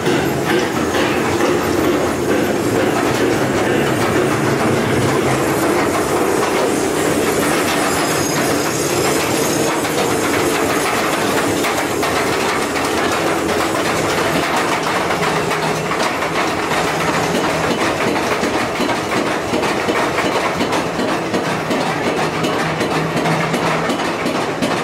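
Mine train ride's ore cars running steadily along the track.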